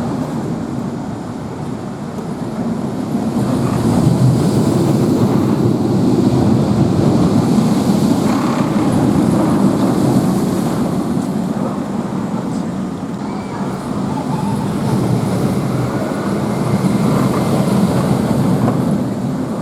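Empty roller coaster trains running on the steel track during test runs: a steady rumble that swells twice, about four seconds in and again near the end.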